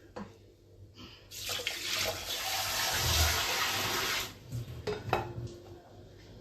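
Water poured from a measuring cup into a pot of rice, a steady splashing pour lasting about three seconds, with a few light knocks of the cup against the pot around it.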